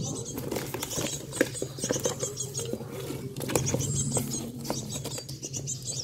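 Scratchy rustling and tapping in a cardboard box as the lid flaps are handled and the nestling birds inside shuffle and scratch on the cardboard floor, with faint quick high-pitched chirps here and there.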